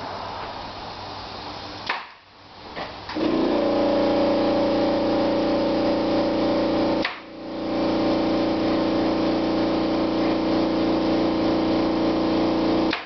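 An electric motor running with a loud, steady hum, starting about three seconds in, stopping briefly with a click around seven seconds, then running again until near the end.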